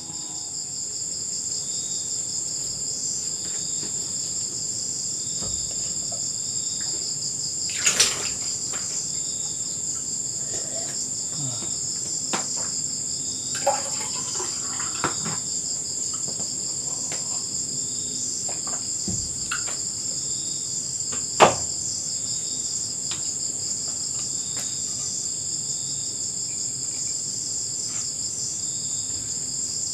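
A steady chorus of night insects chirring at a high pitch, with a fast pulsing beat in it. A few sharp clinks and knocks of dishes and utensils stand out over it, the loudest about a quarter of the way in and again about two-thirds through.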